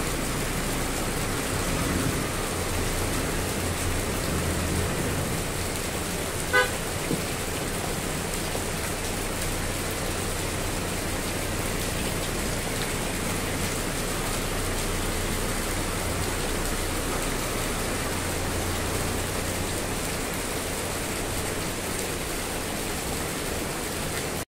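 Heavy rain falling steadily, with van engines running. One short vehicle horn toot about six and a half seconds in.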